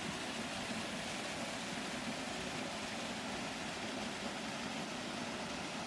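Waterfall and stream water rushing over rocks: a steady, even hiss with no breaks.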